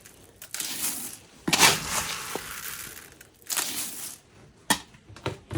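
Crunching noises in a few short swells, then a couple of sharp clicks near the end.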